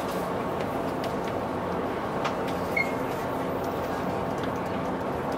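Steady drone of an express passenger boat's engines under way, with a few light clicks and a short high chirp about three seconds in.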